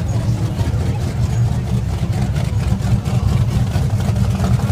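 Supercar engine idling with a steady low rumble.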